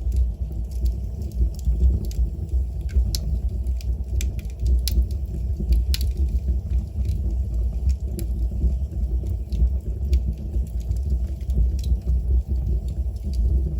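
Wood fire burning in a fireplace: irregular sharp crackles and pops from the burning logs over a steady low rumble.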